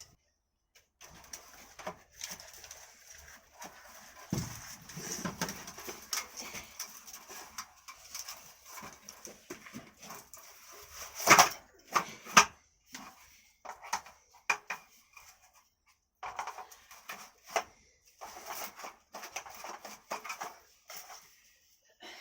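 A table being set up: irregular knocking, clattering and rattling of its parts being handled. There are two louder, sharper knocks about halfway through.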